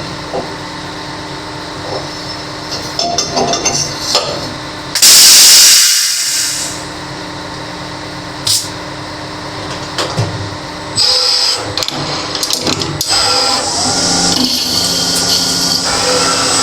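CNC lathe running, machining a steel conveyor roller: a steady machine hum with the tool cutting the metal, the cutting noise growing busier and higher-pitched in the second half. About five seconds in, a loud hiss lasts nearly two seconds.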